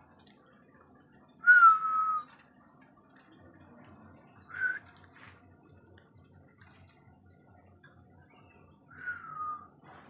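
Pied starling (pied myna) giving three whistled calls, each a clear note falling slightly in pitch: a long one about a second and a half in, which is the loudest, a short one near the middle, and another falling whistle near the end.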